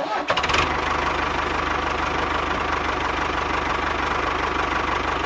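Tractor engine idling with a fast, even chugging knock; it cuts in abruptly and holds steady.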